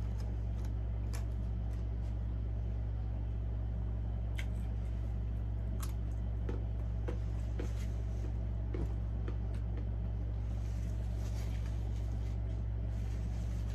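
A steady low hum with faint clicks and smacks of someone chewing fried chicken scattered over it.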